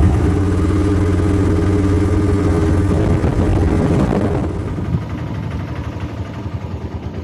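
Auto-rickshaw engine running steadily during the ride, then dying down from about four seconds in as the vehicle slows.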